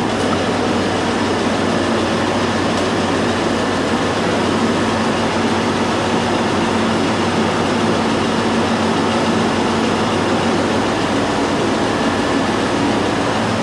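Walk-in freezer condensing unit running: a newly installed Copeland semi-hermetic reciprocating compressor and its condenser fan. A loud, steady rush of air over a low, even motor hum.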